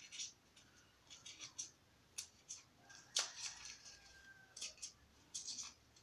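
Pencil tip gouging out the centre of a halved styrofoam ball: faint, irregular scratching and crackling of the foam, with a sharper scrape about three seconds in.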